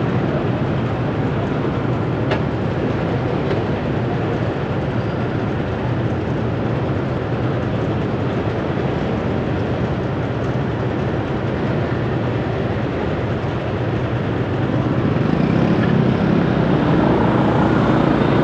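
Steady city traffic and road noise heard while travelling along the street, growing a little louder near the end.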